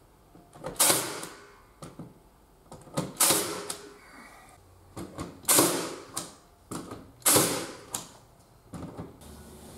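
Makita cordless nailer firing nails through a timber dado rail into the wall: four loud shots about two seconds apart, with lighter clicks and knocks between them as the tool and rail are handled.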